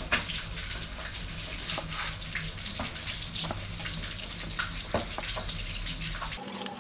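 Chef's knife slicing ginger root on a wooden cutting board: scattered single knocks of the blade on the board, over a steady sizzling hiss of fish frying in oil.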